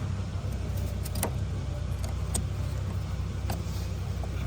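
A steady low rumble with four or five light, sharp clicks and taps from hands working the plastic quick-connector tabs of a diesel fuel line at the filter housing.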